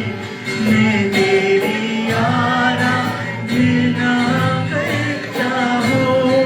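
Live worship song: a voice singing long held notes of a devotional melody over instrumental accompaniment with a steady beat.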